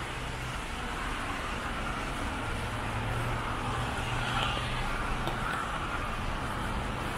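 Street traffic: cars passing in a steady rush of tyre and engine noise, with a low engine hum that comes and goes.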